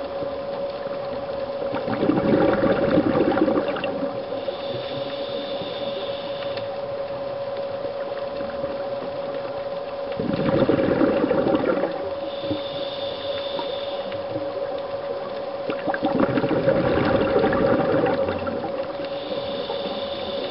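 Scuba diver breathing through a regulator underwater: three loud bubbling exhalations about six to seven seconds apart, each followed by a fainter hissing inhalation, over a steady hum.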